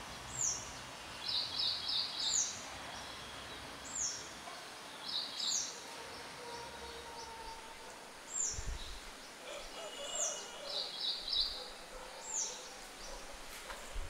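Songbirds singing: a short high note sliding downward, repeated about every two seconds, with quick runs of chirps in between.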